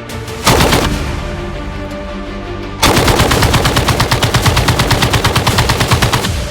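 Suppressed automatic gunfire from a True Velocity weapon fitted with a Delta P suppressor: a short burst about half a second in, then a sustained burst of about three and a half seconds at roughly ten rounds a second. Background music plays under it.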